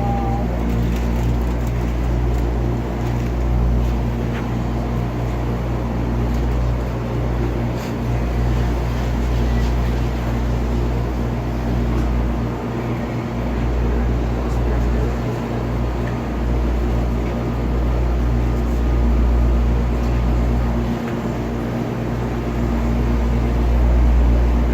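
Washing machine running: a steady mechanical hum over a heavy low rumble that dips briefly now and then.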